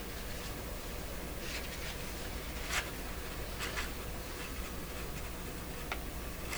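Scissors cutting shop towel material, a few short scratchy snips and some rustling of the cloth over a low steady hum.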